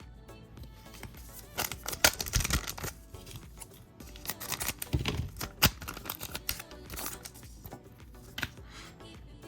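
Trading cards being handled and flipped through, a handful of brief rustling noises, the clearest about two seconds in and at about five seconds, over quiet background music.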